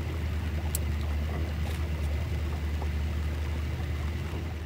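Small boat's outboard motor running steadily under way, a constant low hum with a hiss of water and air over it.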